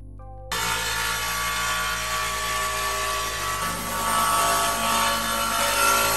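Electric angle grinder running loud and high-pitched as it grinds the edge of a porcelain tile into a bullnose; it starts about half a second in and its whine shifts slightly in pitch partway through as the load changes.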